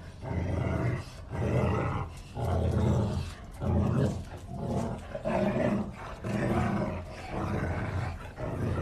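Cane Corso dogs growling in play while tugging a rope toy, in rough low bursts about once a second.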